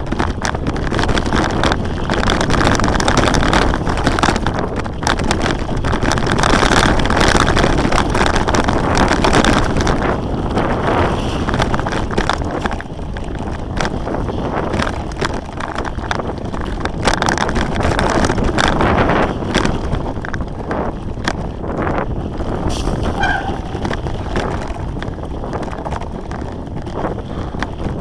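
Mountain bike riding fast down a dirt singletrack: tyre noise on the dirt with many quick knocks and rattles from the bike over bumps, under heavy wind buffeting on the camera microphone.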